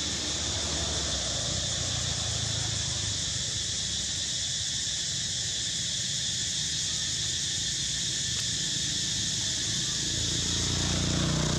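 Steady high-pitched chorus of insects droning without a break. A low rumble grows underneath near the end.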